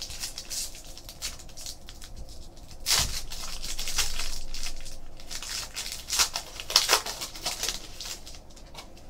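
A foil trading-card pack being torn open by hand and its wrapper crinkled, with a sharp tear about three seconds in and sharp crackles of the wrapper near seven seconds.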